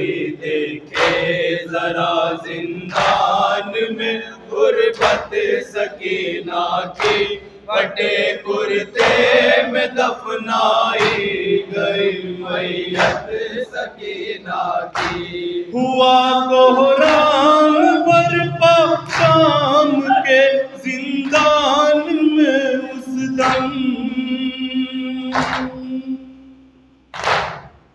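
A male noha reciter leads a group of men singing a Shia lament in Urdu through a microphone, with the mourners' chest-beating (matam) slaps landing about once a second. The singing falls away just before the end.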